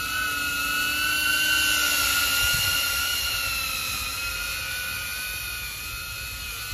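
DJI Avata FPV drone's ducted propellers whining as it flies overhead. The whine is loudest about a second and a half in, its pitch lifting slightly, then easing and fading a little.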